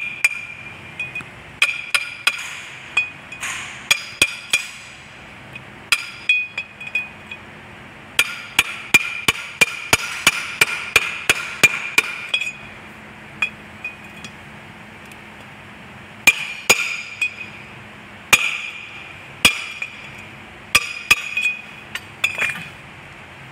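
Hammer striking metal on a rotovator's side drive, each blow ringing with a bright metallic note. Scattered single taps give way to a quick run of about three blows a second about eight seconds in, then spaced blows again near the end.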